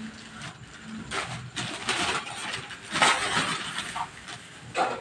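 Irregular clicking, scraping and rustling of tools and metal wall-bracket hardware being handled, with no steady rhythm.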